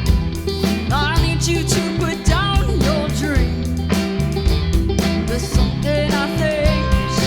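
A band playing an instrumental stretch of a song: steady drums and bass with guitar, and a lead line that slides up and down in pitch.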